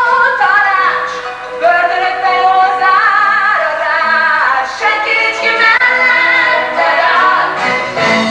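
A woman singing a musical-theatre ballad with instrumental accompaniment, holding long notes that change pitch about once a second.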